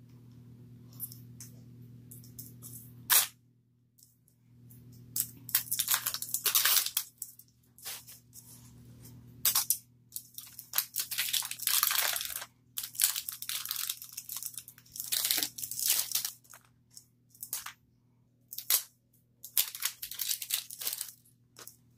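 Plastic wrapping on a Mini Brands surprise ball being picked at, peeled and crinkled in irregular bursts, with a sharp click about three seconds in.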